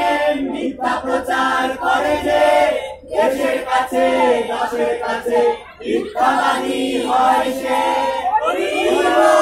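A mixed group of young men and women singing together in phrases, with hand clapping.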